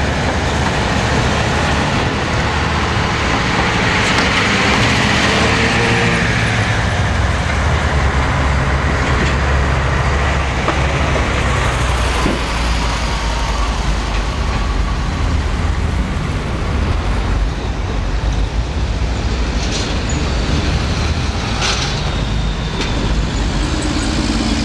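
Busy city street traffic: a steady rumble of engines and tyres from passing cars, vans, trucks and buses, with one louder vehicle going by about five seconds in.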